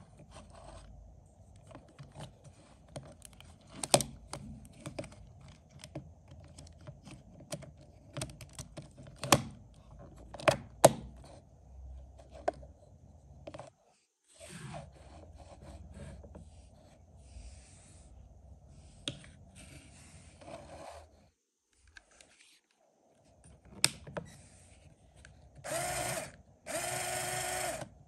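Plastic LEGO Technic parts clicking and rattling as a motor and cables are fitted onto a model, with several sharp snaps. Near the end a LEGO Power Functions motor whines in two short runs, driving the model's gear train.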